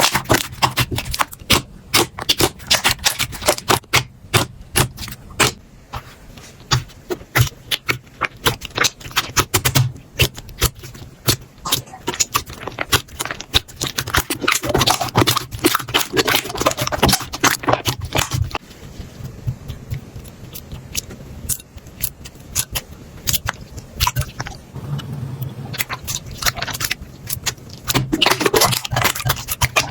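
Slime being squeezed and worked by hand, giving many sharp clicks, pops and crackles. The clicks are densest in the first few seconds and come thicker again around the middle and near the end.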